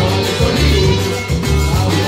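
Live norteño band playing: accordion and alto saxophone over guitar, electric bass and drum kit, the bass pulsing in a steady rhythm.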